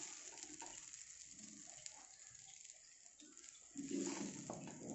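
A faint sizzle from the hot kadai dying away after the flame is turned off, with a spoon scraping and pushing fried minced chicken across the pan. The scraping grows a little louder near the end.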